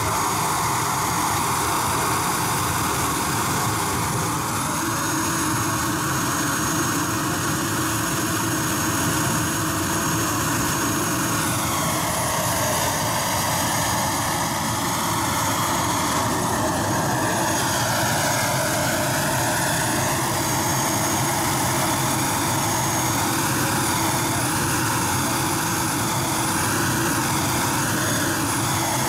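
JetCat P-180 model jet turbine running steadily on the ground: an even, loud rushing roar with a whine whose pitch wanders up and down in the second half.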